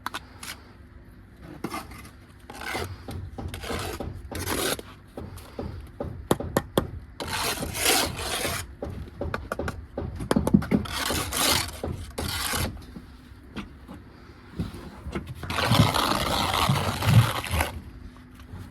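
Steel trowel scraping and spreading mortar on brick: a run of short scrapes with light knocks between them, then one longer scrape of about two seconds near the end.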